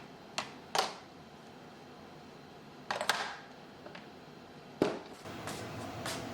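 A handful of short, sharp clicks and knocks, a second or two apart, over a steady low hiss.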